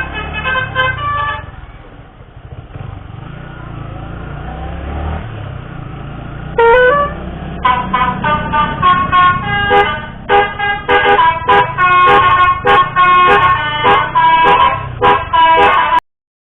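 Basuri telolet musical bus horn playing a quick melody of short stepped notes over the low rumble of a vehicle engine. A few notes sound at first, then several seconds of engine and street noise. A short rising honk comes near 7 s, then a longer run of rapid notes that cuts off abruptly near the end.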